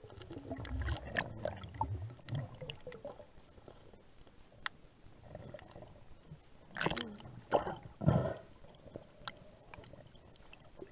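Muffled underwater gurgling and knocks, picked up by a camera underwater: one cluster about a second in and a louder one with deep thumps about seven to eight seconds in, with scattered faint clicks between.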